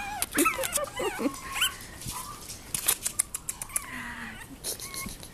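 Young Chihuahua puppies squeaking and whining: a quick run of short, high, wavering squeals in the first second and a half, and a fainter whine later. Sharp ticks and rustles as they scramble on the blanket.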